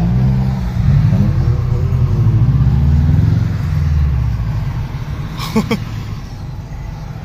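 2003 Subaru WRX's turbocharged flat-four with an aftermarket exhaust, heard from inside the cabin while driving. Its pitch rises and falls a couple of times as it pulls, then it settles to a quieter, steady cruise about four seconds in.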